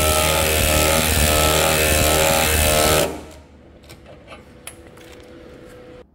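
Milwaukee M12 12-volt cordless impact driver hammering at its highest setting as it turns a scissor jack's screw under the load of lifting a car. It stops about three seconds in, leaving a few light clicks.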